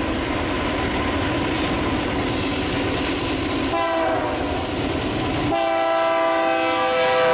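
Freight train of tank cars led by BNSF diesel locomotives approaching, engines and wheels rumbling. Partway through, the lead locomotive's multi-chime air horn sounds, then a second, longer blast begins and runs on, sagging slightly in pitch as the train passes.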